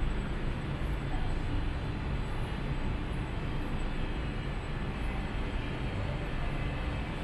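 Steady low rumble of city background noise in a narrow laneway, with no distinct events.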